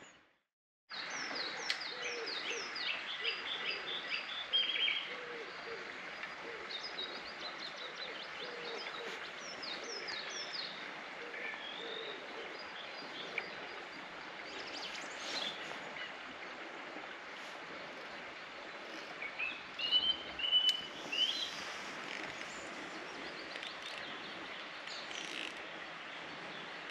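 Songbirds chirping and singing over a steady outdoor hiss, with rapid runs of short down-slurred notes and a louder warbling call about twenty seconds in. It begins after about a second of silence.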